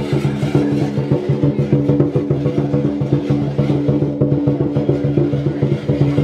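Chinese lion dance drum beaten in a fast, steady beat, over a constant low hum.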